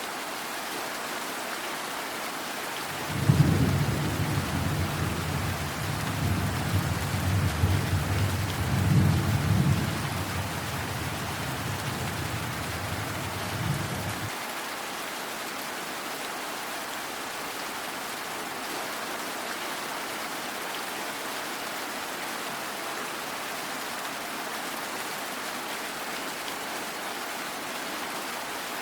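Steady rain with a long, low rumble of thunder that begins suddenly about three seconds in, rolls and swells for about eleven seconds, then stops abruptly.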